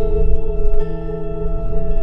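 Background music of sustained, ringing tones, with the chord shifting just under a second in.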